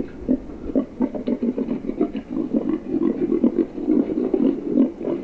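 Feral hog vocalizations: a rapid, continuous run of low grunts and growls. This is the 'courting boars' call, a recording of boars courting a sow in heat, played from an electronic boar caller.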